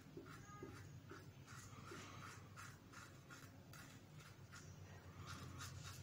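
Faint, quick scratchy strokes, about three a second, of a Pearl Shaving SE Sleek single-edge safety razor scraping through lathered stubble on the upper lip and chin.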